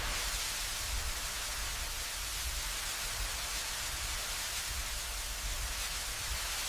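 Steady hiss over a low rumble, with no distinct events.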